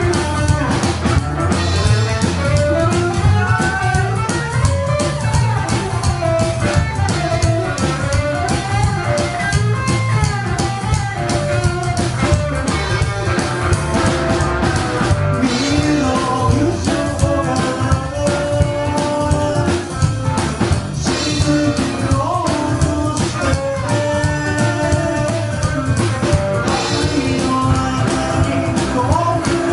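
A rockabilly band playing live, with electric guitar over drums and bass, and singing.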